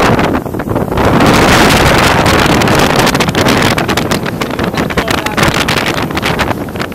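Strong wind buffeting the microphone aboard a sailing yacht under way, in uneven gusts over the rush of water. The level dips briefly about half a second in.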